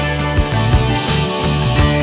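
Background music: a rock track with guitar over a steady drum beat.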